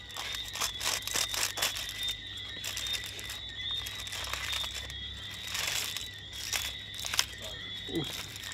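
Aluminium foil pouch being crinkled and peeled open by hand and plastic fork: a run of irregular crackles.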